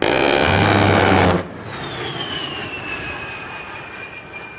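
A-10 Thunderbolt II's GAU-8 Avenger 30 mm rotary cannon firing one burst of about a second and a half, a deep steady buzz that cuts off suddenly. Then comes the whine of the jet's twin turbofan engines, slowly falling in pitch as it passes.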